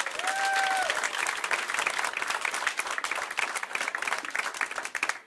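Comedy club audience applauding, greeting a comedian called to the stage, with the clapping dying away near the end.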